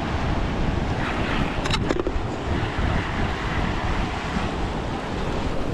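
Sea surf washing over rocks, with wind buffeting the microphone and a few brief clicks a little under two seconds in.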